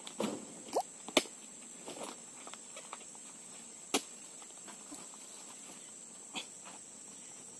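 Sharp knocks and thuds as oil palm fruit bunches are speared with a hand spike and heaved into a pickup truck's bed, the loudest about a second in and again about four seconds in. A steady high-pitched insect drone runs underneath.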